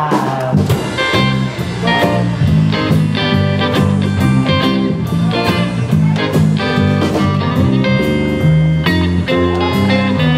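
Live band playing an instrumental passage: electric guitar leading over a stepping bass line and regular drum hits.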